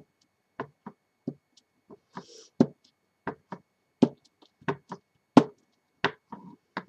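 Clear acrylic stamp block repeatedly knocking down onto an ink pad and onto card while stamping: a quick, irregular series of sharp knocks, about two a second.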